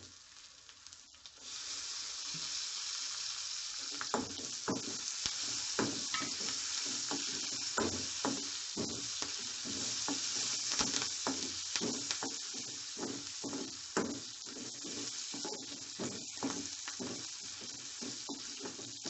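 Onions, ginger-garlic paste and curry leaves sizzling in hot oil in a kadai, with a metal spoon stirring and scraping against the pan in many quick strokes. The sizzle starts about a second and a half in, as the curry leaves go into the oil.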